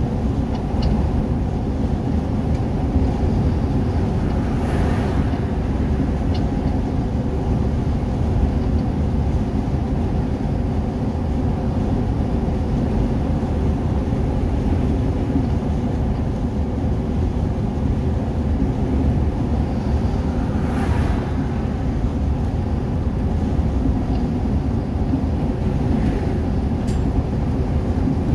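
Steady engine and tyre rumble inside a vehicle's cabin while cruising at highway speed, with two brief swells of higher noise about five and twenty-one seconds in.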